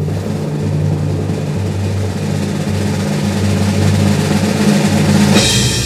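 Drum roll sound effect: a low, rumbling timpani-style roll that slowly builds in loudness, ending with a cymbal crash near the end.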